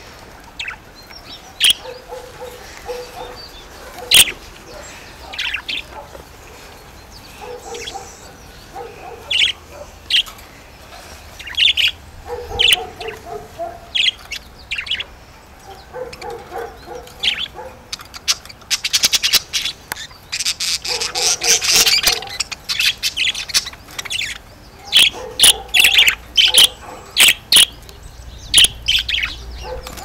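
Caged budgerigars chirping and chattering in short, sharp calls, with lower warbling in between and dense flurries of rapid chirps about two-thirds of the way through and again near the end.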